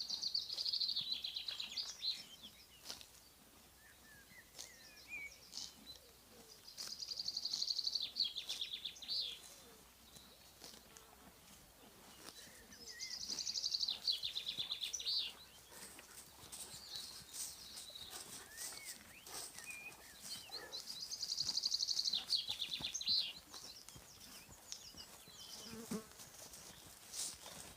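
A songbird singing the same short trilled phrase four times, about every six to seven seconds, with faint chirps from other birds in between.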